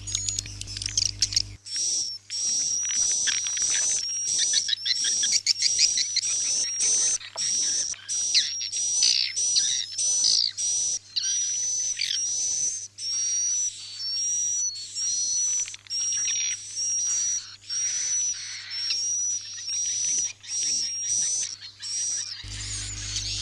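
Swiftlet roosting-lure call track ('suara inap', played in swiftlet houses to get the birds to stay the night): rapid twittering chirps over a steady high whistle, repeating in bursts about a second long with short gaps. A low hum runs under it in the first second or two and again near the end.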